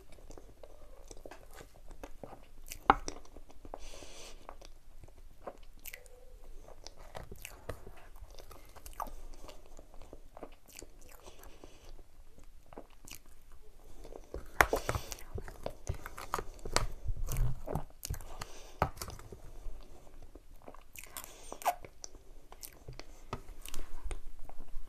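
Close-miked mouth sounds of someone eating soft chocolate whipped cream: scattered sharp mouth clicks and chewing, busiest about halfway through.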